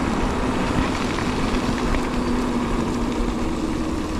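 Mountain bike rolling along a trail: steady tyre and wind noise with a constant low hum running through it.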